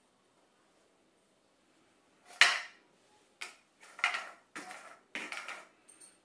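Metal forks scraping and clicking against thin disposable cups as the cups are pulled off a stack and set down on a tabletop. After a quiet start, a sharp loud scrape comes about two seconds in, followed by a quick run of five shorter scraping sounds.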